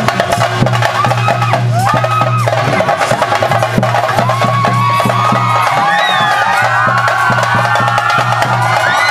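Theyyam ritual drumming: chenda drums beaten rapidly with sticks in a dense, fast stream of strokes, with high gliding tones over the drumming that grow busier in the second half.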